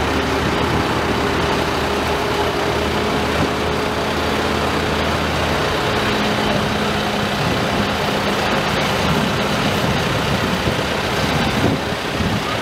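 John Deere utility tractor's diesel engine running steadily at low speed as the tractor drives close past. Its low, even engine hum thins out after about six seconds as it goes by.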